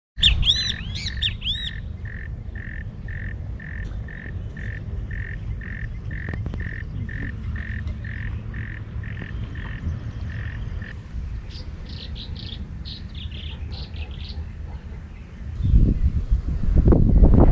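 Birds calling: a short run of ringing, arched notes, then a long, even series of single repeated notes at about two a second. A quicker run of higher notes follows near the end. Wind rumbles on the microphone throughout and gusts loudly near the end.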